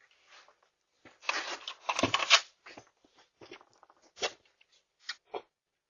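Rustling and scuffing for a second or so, then a few short knocks or clicks, heard through a Ring doorbell camera's microphone.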